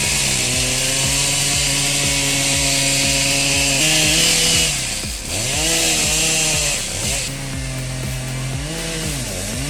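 Petrol chainsaw running at high throttle and cutting wood, its engine note steady apart from two brief dips where the revs fall and come back up, about five seconds in and near the end.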